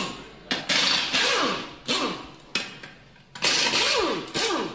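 Sound effects over an intro logo card: five or so sudden, hissing hits in quick succession. Each fades within about a second with a falling tone.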